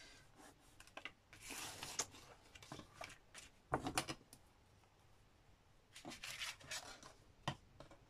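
Paper and card being handled: soft rustles and scattered light clicks, the sharpest about four seconds in.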